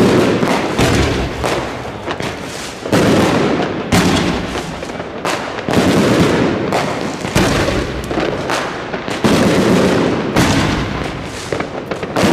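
New Year's Eve fireworks going off in dense succession: loud booms every one to two seconds, each with a rumbling tail, and sharp cracks and crackling between them.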